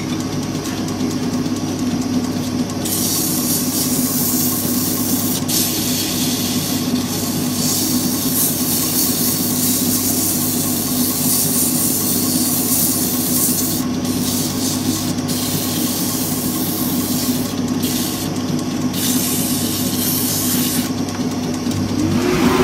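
Wood lathe motor running with a steady hum while sandpaper is held against the spinning purpleheart grip, a hiss that comes in a few seconds in, breaks off briefly several times between passes, and stops near the end.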